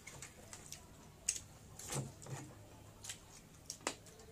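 Eating sounds: scattered short, wet clicks and smacks from chewing and from hands mixing rice and curry on metal plates, the sharpest about a second in, at two seconds and near the end.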